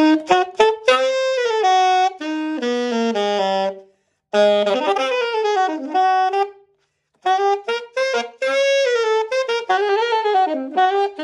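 Alto saxophone played solo: a short melodic passage in three phrases with a breath between each, opening with a few quick tongued notes and going on in held notes stepping up and down.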